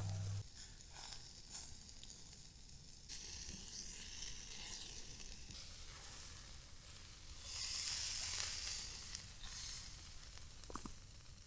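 Seasoned minced-meat patty sizzling on a wire grill rack over hot charcoal, a steady hiss that swells louder about eight seconds in.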